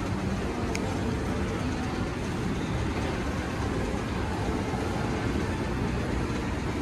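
Steady low rumble and hiss of busy indoor shopping-mall background noise, with one short click just under a second in.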